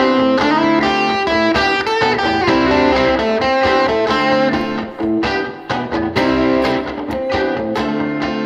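Schecter PT Fastback electric guitar played amplified: picked chords and single notes ringing on, with sharper pick strokes in the second half.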